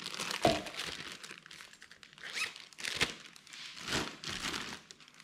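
Clear plastic parts bag crinkling as gloved hands handle it, in irregular crackles with a couple of soft knocks.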